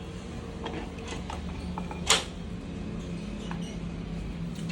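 Motorcycle rear-wheel parts being handled as the wheel comes off, with scattered small knocks and clicks and one sharp metallic clank about two seconds in, over a steady low hum.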